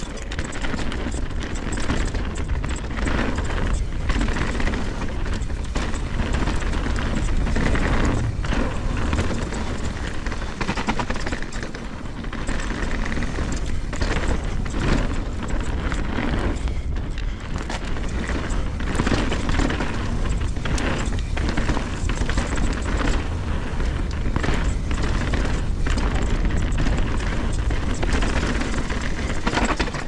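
Mountain bike being ridden on a dirt trail, heard from a camera on the bike or rider. Wind rumbles on the microphone, tyres hiss over the dirt, and the bike knocks and rattles over roots and bumps.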